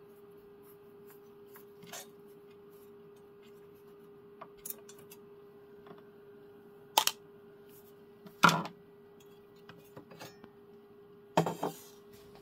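A few scattered sharp metal clicks and knocks as the steel case of an old valve radio is unscrewed and opened with a screwdriver, the loudest about two thirds of the way through, over a faint steady hum.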